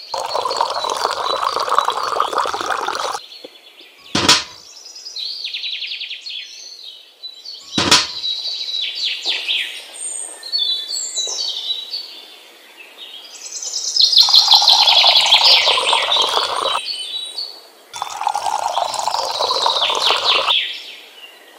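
Water poured in thin streams from a tiny steel cup into a small container, in three pours of a few seconds each. Bird chirps fill the gaps, and two sharp clicks sound about four and eight seconds in.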